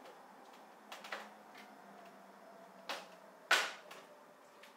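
Light knocks and clicks of kitchen handling at a blender jar, the loudest a sharp clack about three and a half seconds in, over a faint steady refrigerator hum.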